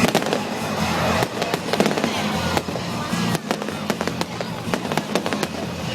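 Fireworks going off in rapid succession, a dense run of sharp bangs and crackles, with music playing underneath.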